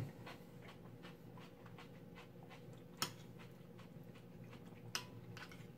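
A metal spoon clicking twice against a ceramic bowl, about three and five seconds in, over a quiet room with a faint steady hum.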